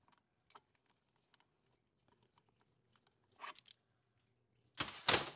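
A pump puller being handled on the front pump of a 4R70W automatic transmission: faint scattered metal clicks and a short scrape, then a louder harsh clatter near the end as the puller comes off.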